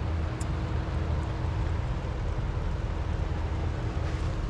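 Senville 18,000 BTU heat pump running with a steady hum over a low rumble, back in operation with its E1 error cleared after a replacement circuit board.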